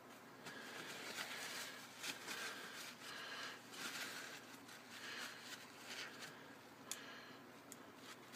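Faint rustling and rubbing of a paper towel wiping a vape tank dry, in irregular soft scrapes, with a couple of small sharp clicks near the end.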